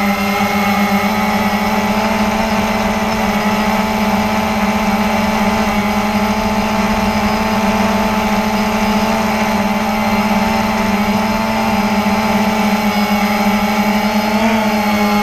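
Cheerson CX-20 quadcopter's motors and propellers droning steadily in flight, heard close up from a camera mounted on the drone, with a brief wobble in pitch near the end.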